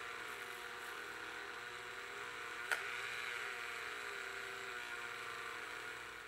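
Dremel rotary tool spinning a felt polishing wheel against a 1215 steel socket, polishing it with compound: a steady whine that wavers slightly in pitch as the work is pressed on, with one brief click about two and a half seconds in. It cuts off suddenly at the very end.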